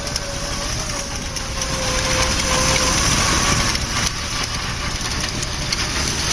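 Engine of a VW Beetle converted to tank tracks, running steadily with a thin, steady whine above it; it gets louder about two seconds in and eases back about four seconds in.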